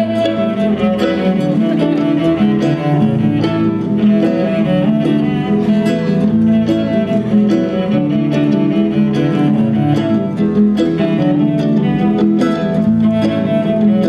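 Instrumental passage of a live song: an acoustic guitar strummed briskly, with steady held notes sounding over the chords and no singing.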